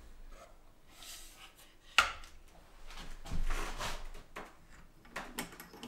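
A single sharp knock about two seconds in, then clinking and rattling of steel drill bits being handled in a wooden case, with a few small clicks near the end.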